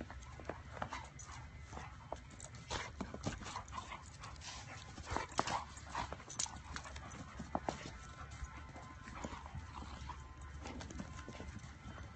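Two dogs, one a five-month-old puppy, play-fighting: a busy run of quick scuffling clicks and scrapes, with dog noises mixed in.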